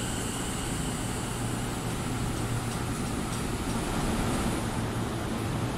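JR East E233-6000 series electric train rolling along the platform: a steady rumble of wheels on rail, with no clear motor whine.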